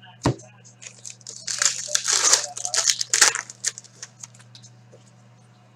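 Foil wrapper of a hockey card pack crinkling and tearing as it is opened, loudest in the middle, after a single sharp tap near the start.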